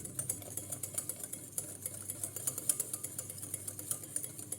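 Hand whisk beating eggs, sugar and oil in a mixing bowl, its wires clicking rapidly and unevenly against the bowl.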